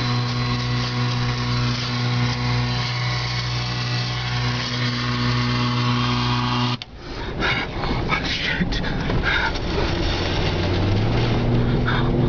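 Wind and rain on a vehicle in a tornado, heard from inside the cabin. A steady droning hum runs for the first several seconds, then cuts off abruptly into ragged gusting noise with spatters and knocks.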